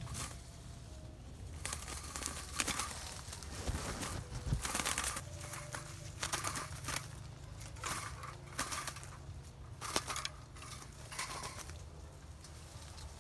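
Wire-mesh cage trap and the leaves around it rustling and rattling in irregular bursts as it is handled by hand.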